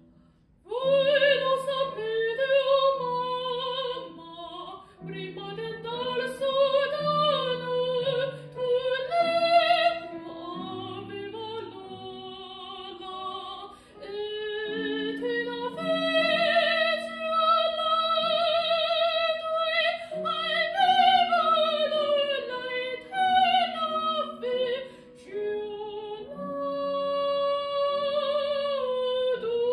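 A solo female operatic voice singing an Italian aria with wide vibrato over a sustained instrumental accompaniment. The voice comes in about a second in and pauses briefly between phrases.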